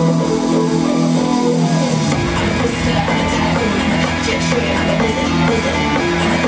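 Loud recorded music with guitar and drums, played for a dance routine; a heavier bass comes in about two seconds in.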